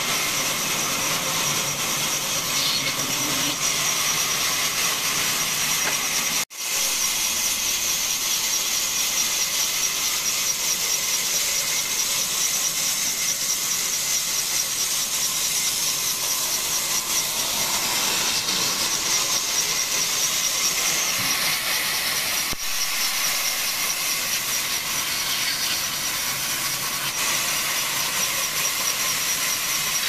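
Large vertical band saw cutting lengthwise through a fresh green log: a steady high-pitched whine with the hiss of the blade in the wet wood. The sound breaks off for an instant about six seconds in.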